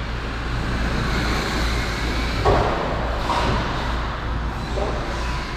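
Radio-controlled cars running on an indoor track: a steady noise of motors and tyres, with a short knock about two and a half seconds in.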